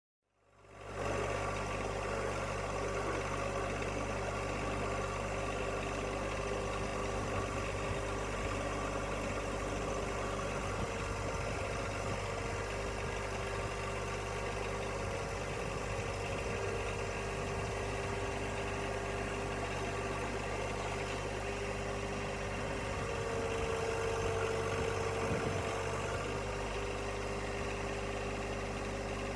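Engine running steadily at a constant speed. It comes in just after the start and holds even throughout.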